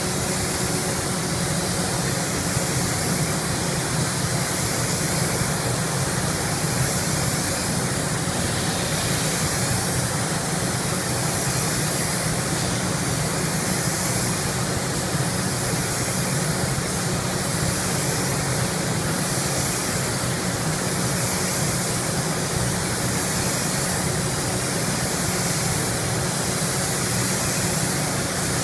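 Compressed-air paint spray gun hissing steadily as the colour coat is applied, the hiss swelling and fading every second or two, over a constant low hum.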